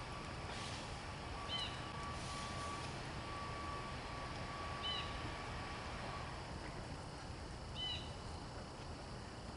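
A bird calling three times, short high chirps about three seconds apart, over faint outdoor background noise.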